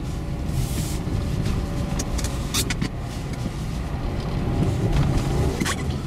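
Car driving slowly on a snow-covered road on Dębica Frigo HP2 winter tyres, heard from inside the cabin: a steady low rumble of engine and tyres on snow, with a few short crackles.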